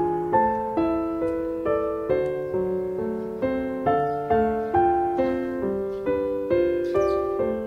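Background piano music, single notes and chords struck at an even pace of about two a second, each note fading before the next.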